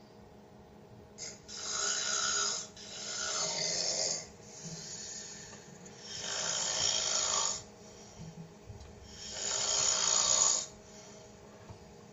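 A man snoring loudly in his sleep, in long noisy snores that come in slow breaths about every three seconds, with quieter gaps between them.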